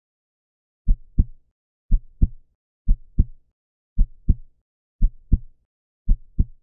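Heartbeat sound effect: six slow double thumps, lub-dub, about one pair a second, starting about a second in.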